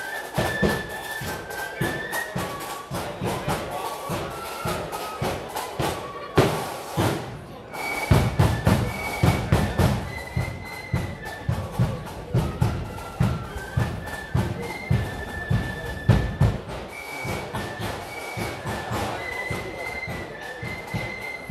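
Marching accordion band playing a tune: reedy accordion melody notes over a steady bass drum beat, with the drums hitting harder from about eight seconds in.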